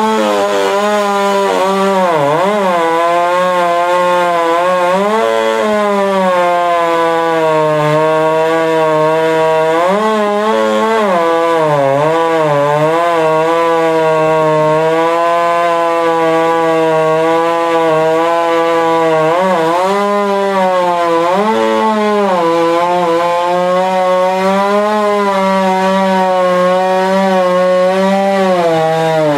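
Ported professional chainsaw cutting through wood at high revs, running loudly and continuously. Its pitch sags and climbs back again and again as the chain loads up in the cut, with a chain the owner admits was not sharp.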